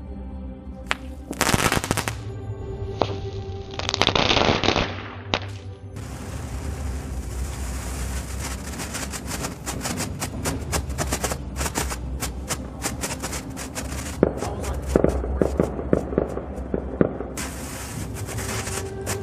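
Ground fountain firework hissing and spraying, then crackling with a fast run of sharp pops and a few louder bangs. Background music plays underneath.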